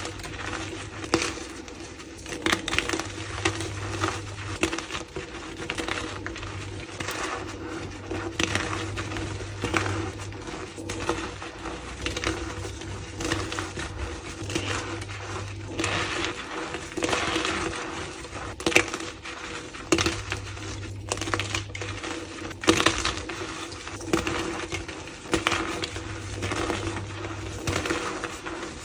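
Gym chalk being crushed and crumbled: a dense run of irregular crunches and crisp crackling snaps, over a steady low hum.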